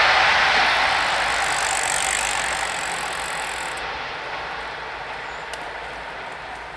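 Mat '64 electric train moving away from the level crossing, its rumble and rail noise fading steadily; about halfway through a high hiss cuts off suddenly.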